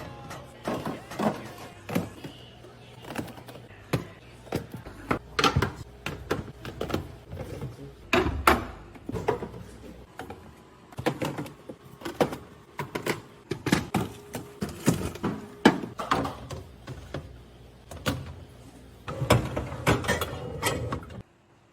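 Irregular knocks, clacks and thunks of containers and food items being handled and set down while restocking a fridge, with a door or drawer sliding. The sound cuts off abruptly near the end.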